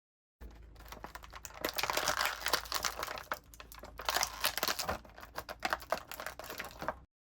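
Packaging crinkling and rustling as an action figure is pulled out of it: a dense, irregular run of crackles and small clicks that starts about half a second in and stops abruptly near the end.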